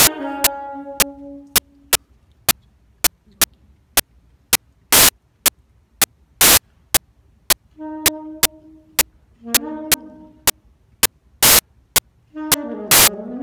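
Unaccompanied saxophone playing a blues line: a falling phrase that dies away, a few seconds' pause, two short groups of notes, then a note that slides up and back down near the end. A train of sharp, loud clicks, about two a second, cuts across the music.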